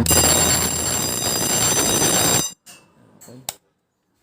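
Fire alarm ringing loudly during a test, set off from a push-button manual call point, then cutting off suddenly about two and a half seconds in; a few faint clicks follow.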